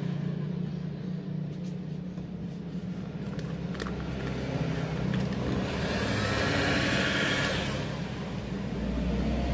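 Road traffic passing: a steady low engine hum, with a vehicle swelling and fading about six to seven seconds in. A few light clicks come from handling the plastic film.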